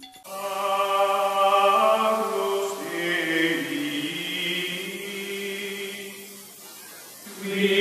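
Outro music of chanted voices holding long, slowly shifting notes, fading down about five seconds in and swelling again near the end.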